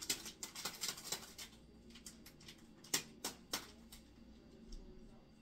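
Small handling noises of hands working at a stainless steel bowl: a quick run of light clicks and rustles, then three sharp clicks about three seconds in.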